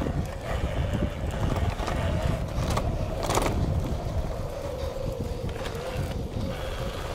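Mountain bike ridden along a dirt trail: wind buffeting the camera microphone over the rolling noise of the tyres on dirt, with a steady hum and a sharp knock or rattle about three seconds in.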